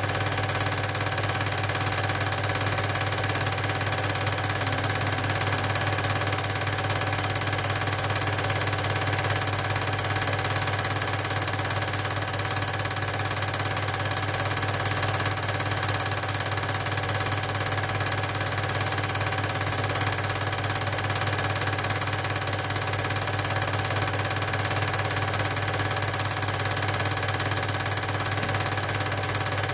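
8 mm cine projector running: a steady mechanical whirr over a constant low hum, with no change throughout.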